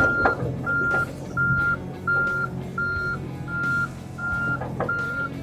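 John Deere mini-excavator's backup alarm beeping steadily at one pitch, about one and a half beeps a second, as the machine travels, over the steady hum of its diesel engine, with a few brief knocks from the machine.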